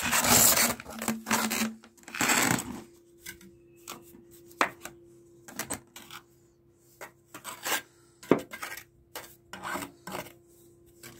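Mason's trowel working cement mortar around a PVC floor drain and its pipe. Two long scrapes in the first three seconds, then a string of sharp clicks and taps as the mortar is packed in.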